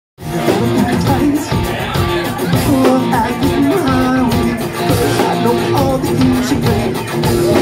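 Live rock band playing amplified: sung vocals over electric guitar and drums.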